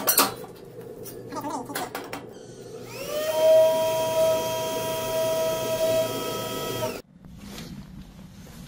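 A metal clank as the steel door of a homemade wood stove is shut near the start. About three seconds in, a handheld electric tool's motor spins up with a rising whine, runs steadily for about four seconds, then cuts off suddenly.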